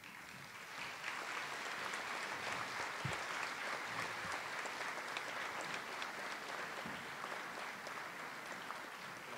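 Audience applauding steadily in a large hall, building about half a second in and tapering off near the end.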